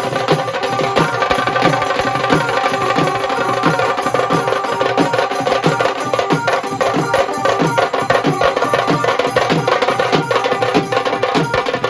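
Dhol-tasha drum ensemble playing a fast, loud rhythm: dense rolls on the tasha drums over deep dhol strokes that drop in pitch, a few every second.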